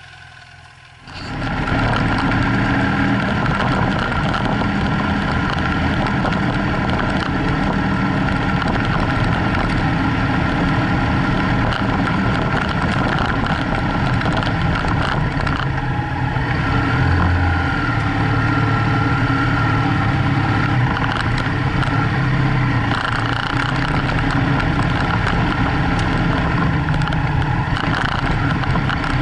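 BMW F800GS 798 cc parallel-twin engine idling quietly for about a second, then loud, steady riding noise as the bike runs along a gravel track: engine together with a constant rush of wind and tyre noise on the mounted camera.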